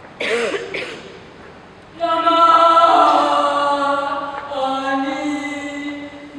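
A voice singing long, sustained notes in a chant-like way, coming in about two seconds in and stepping down a little in pitch partway through. A short sliding sound is heard just before the singing begins.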